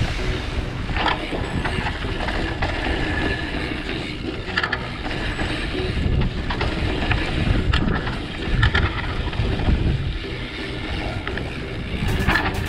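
Mountain bike rolling fast down a dry dirt trail: tyre rumble and wind on the microphone, with sharp rattles and knocks from the bike over bumps every second or two.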